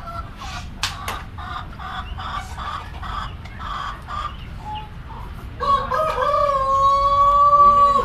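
Penned chickens clucking in short repeated calls, then a rooster crows about five and a half seconds in: one long, loud call that holds a steady pitch to the end.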